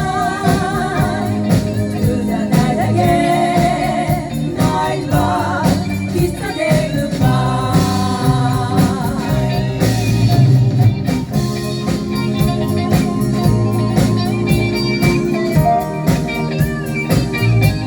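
1980s British jazz-funk song playing: sung vocals over bass, keyboards and a light, steady drum beat.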